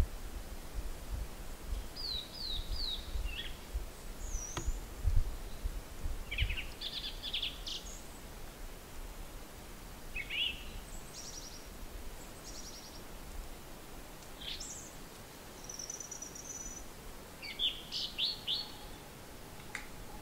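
Small birds calling in a birch wood: short chirps and quick downward-sweeping notes, some in groups of three or four, scattered through. A low rumble of wind on the microphone comes and goes, strongest in the first half.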